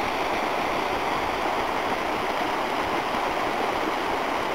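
Steady rush of flowing water, an even unbroken noise.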